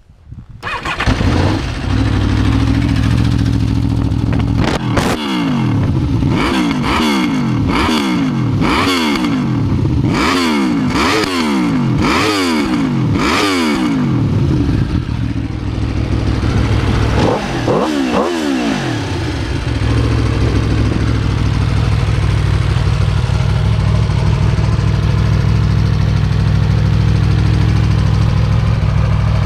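Aprilia RSV4 Factory's V4 engine through its stock exhaust with the exhaust valve closed. It idles, is blipped up and down about eight times in quick succession, idles again, gets two more blips, then settles into a steady idle.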